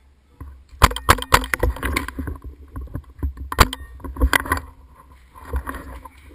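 Paintball markers firing: a dozen or so sharp pops in quick, irregular bursts over about four seconds, followed by a brief scuffling noise near the end.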